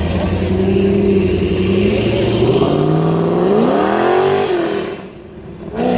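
Car engine running under load, then revving up sharply about three seconds in and falling away just before the end.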